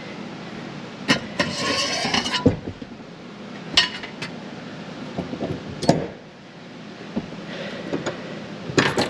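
Metal hand tools clinking and knocking at the fuel pump's lock ring on top of the tank, with a scraping rattle lasting about a second near the start and a few sharp knocks after.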